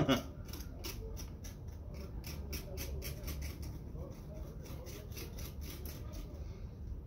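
Small metal knife scraping and stirring damp salt in a stone molcajete: a quick run of gritty scrapes, about three to four a second, that stops about six seconds in.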